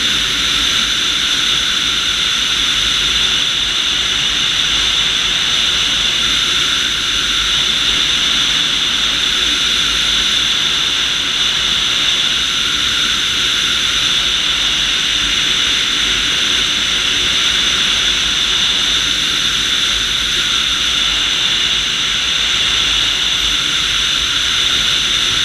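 Steady in-flight noise of an IAR IS-28M2 two-seat motor glider, heard from a camera mounted outside on the airframe: a loud, even rush of air with a hiss on top that does not change.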